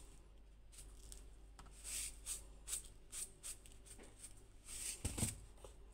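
Salt being sprinkled onto seasoned ground meat in a plastic bowl: a run of soft, irregular hissing rustles, with a dull knock about five seconds in.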